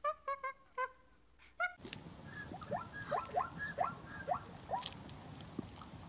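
A monkey giving a quick run of five short, pitched calls. Then, over steady outdoor background noise, a series of about seven short rising chirps at an even pace.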